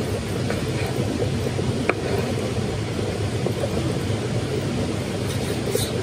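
Wood campfire burning with a steady low rush, with scattered crackles and a sharp pop about two seconds in.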